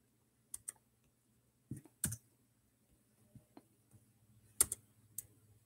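Faint, scattered clicks of a laptop's keys and touchpad: about eight short taps, mostly in pairs, with quiet gaps between. The loudest pair comes about two-thirds of the way through.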